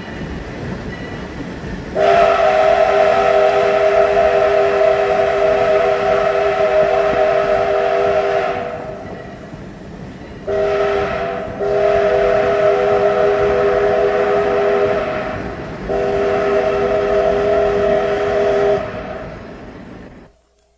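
Steam whistle of Canadian Pacific G5a 4-6-2 No. 1201 sounding four blasts of several notes at once, the second short and the others long, over the rumble of the moving train. The sound cuts off abruptly near the end.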